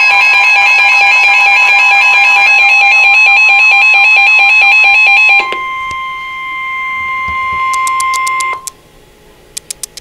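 Reecom weather alert radio going off for a flash flood warning: a loud pulsing multi-tone alarm over a steady warning tone. The pulsing stops about five and a half seconds in, leaving the steady tone alone, which cuts off about three seconds later, followed by a few faint clicks.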